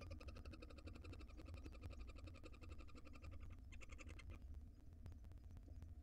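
Barn owl giving a faint, rapid, buzzy chittering call for about three and a half seconds, followed by a brief higher-pitched burst about four seconds in. A steady low hum runs underneath.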